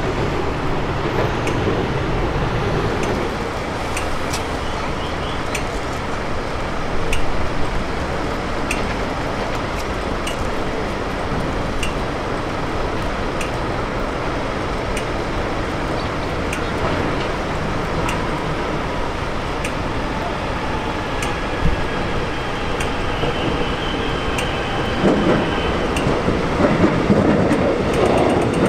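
Rail vehicle running: a steady rumble with faint regular ticks, growing louder in the last few seconds.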